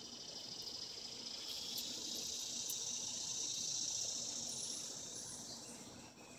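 Insects trilling, a high buzz that swells after a second or two and fades near the end.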